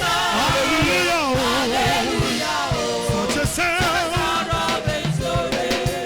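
Live gospel choir singing with band accompaniment, the voices sliding in wavering runs over a steady drum beat.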